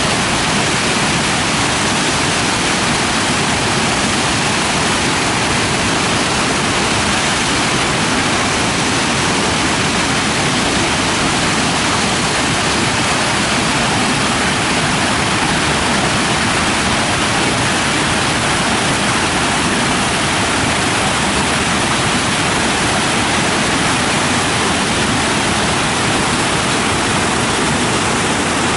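Grand Falls of the Little Colorado River, water pouring over a wide series of stepped rock ledges: a steady, loud rush of falling water that does not change.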